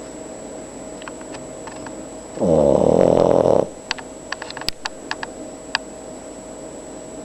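Boston Terrier snoring: one loud snore lasting about a second, a couple of seconds in, followed by a quick scatter of sharp clicks.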